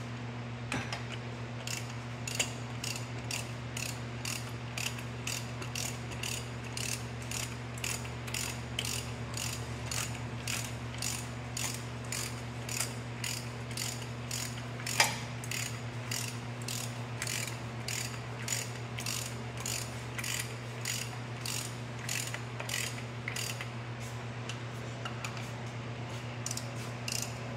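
Hand ratchet wrench clicking steadily, about two clicks a second, as bolts on a tractor's main bearing housing are run in, with one sharper click about halfway through. A steady low hum sits underneath.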